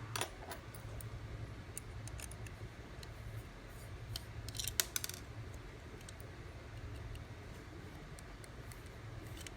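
Small metallic clicks and scrapes of a small screwdriver working the tiny screws out of the base of a 1/64 scale diecast model car, with a quick cluster of sharper clicks about five seconds in.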